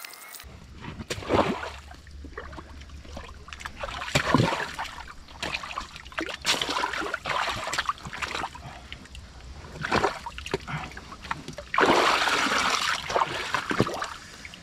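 Shovel working in a trench flooded with groundwater in clay loam: irregular splashes and sloshes of muddy water, with a longer, louder stretch of splashing about twelve seconds in.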